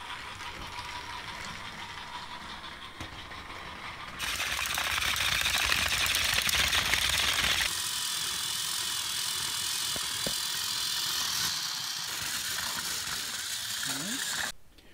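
Battery-powered TOMY Trackmaster toy trains running on plastic track, their small electric motors and gears going steadily; the sound changes abruptly about four and eight seconds in.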